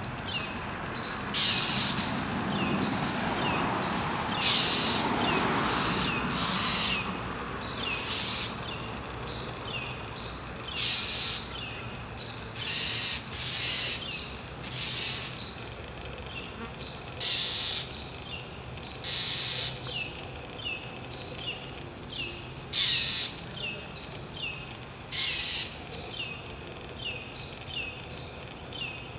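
Northern mockingbird mobbing a barred owl with harsh scolding calls every couple of seconds, over many short falling chirps and a steady high insect drone.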